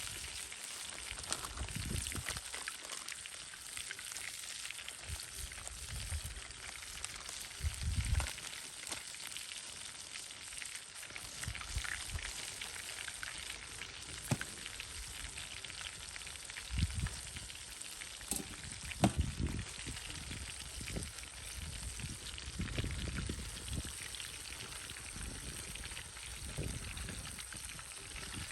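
Hot oil sizzling steadily as pieces of karaage (Japanese fried chicken) deep-fry, with occasional sharp crackles and a few low thumps.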